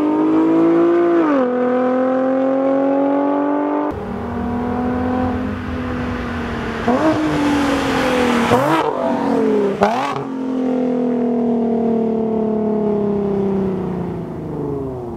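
Nissan 370Z's 3.7-litre V6 through a Fi valvetronic exhaust with its valves open, accelerating hard with a rising pitch and an upshift about a second and a half in. It then passes close by, loudest around the middle with the pitch jumping, and its falling note fades away near the end.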